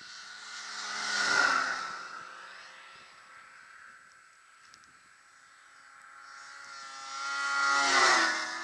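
Snowmobiles speeding past at close range twice, about a second and a half in and again near the end. Each engine note swells and then drops in pitch as the machine goes by.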